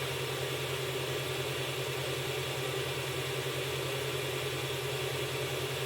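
CR-10 3D printer running mid-print, its stepper motors and fans giving a steady mechanical hum with a fast low flutter.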